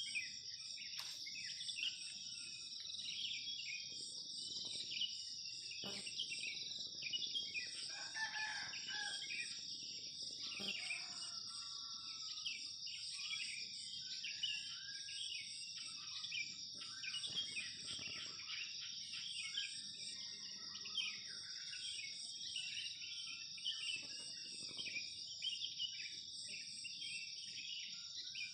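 Morning rural soundscape: a steady high-pitched insect drone with pulsing chirps, many small birds calling, and a rooster crowing about eight seconds in.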